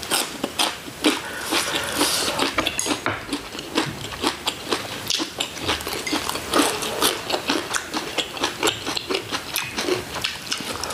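Close-miked eating sounds: chewing with many short, irregular clicks and taps.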